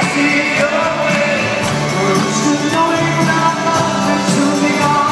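Live rock band playing with a steady beat and singing, heard from within the arena audience.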